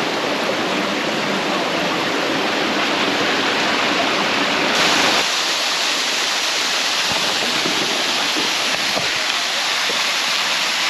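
Rushing water of a waterfall: a steady, full hiss of falling water. About five seconds in the sound changes abruptly, losing much of its low rumble and turning brighter.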